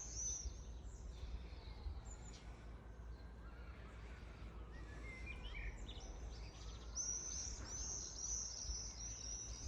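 Small birds singing and chirping over a steady low outdoor background rumble; a quick run of repeated high chirps starts about seven seconds in.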